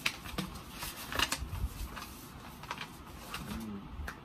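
Plastic snack packets and packaging being handled, rustling and crinkling in a series of short crackles and scrapes.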